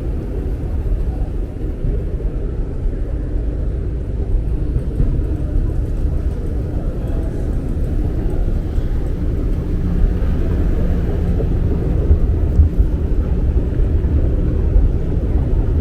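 Steady low rumble with a few faint ticks and no clear tone or rhythm.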